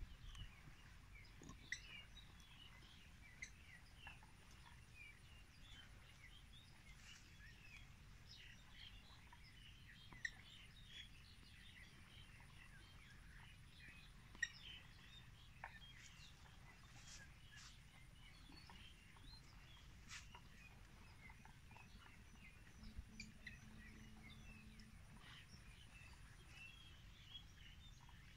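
Faint outdoor ambience: many short, scattered high chirps over a low rumble, with a faint steady high whine and a few light ticks.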